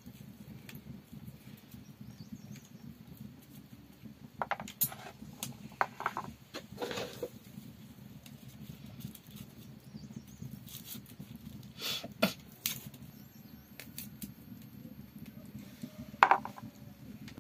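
Garlic cloves being peeled by hand: scattered small clicks and crackles of dry papery skins being split and pulled off, with a few sharper clicks. A steady low rumble runs underneath.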